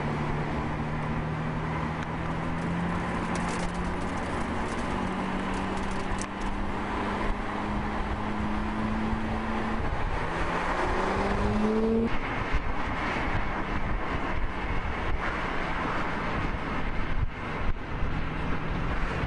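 Lamborghini V12 engines running at low revs, a steady engine note that slowly creeps up in pitch. About ten seconds in an engine revs up, and the note breaks off at twelve seconds, leaving road and wind noise until a steady engine note comes back near the end.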